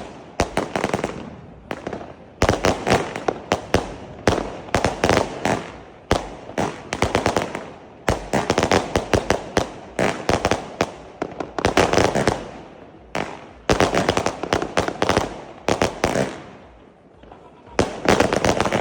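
Purple Haze 20 mm, 100-shot firework cake firing: rapid volleys of sharp launch pops and bursts, each run lasting about a second with brief gaps, easing off for a moment near the end before the shots resume.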